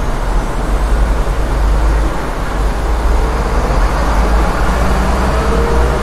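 Busy city street traffic: a steady low rumble of engines and tyres from many vehicles, with a faint rising whine coming in about halfway through.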